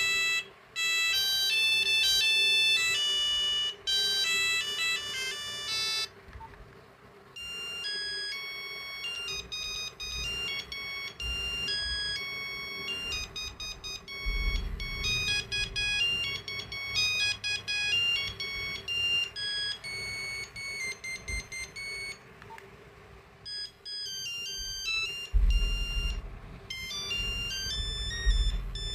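Nokia 8250 playing its monophonic ringtones: a melody of quick beeping notes stops about six seconds in, and after a short gap another stepped beeping tune begins. Low thumps come in about halfway and again near the end.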